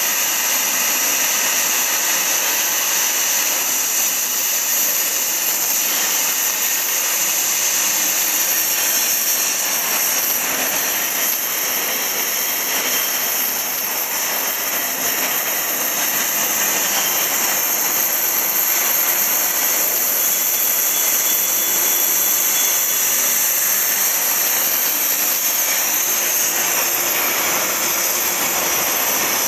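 CNC oxy-fuel cutting torch burning through 10 mm St3 mild steel plate: a steady, loud hiss of the cutting-oxygen jet and flame.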